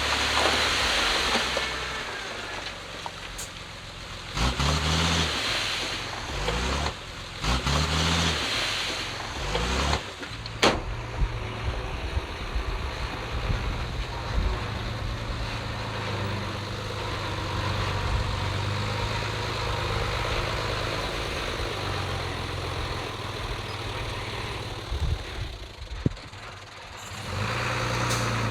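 Heavy diesel engine of earthmoving machinery at work. It revs up in short bursts several times in the first ten seconds, with a sharp clank just after ten seconds in, then keeps running steadily under load.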